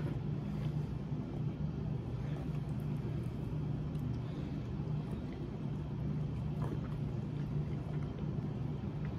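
Steady low hum, with a few faint crinkles of a small plastic soy sauce packet being handled and torn open.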